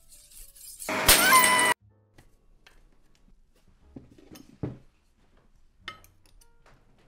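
A glass wine bottle smashing: a loud crash of breaking glass with ringing shards about a second in, lasting under a second and cut off abruptly. A few light clinks of cutlery on a plate follow.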